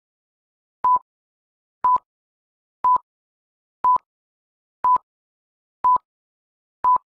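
Film-leader countdown beeps: a short, steady-pitched beep once a second, seven in all, each with a faint click at its start and end.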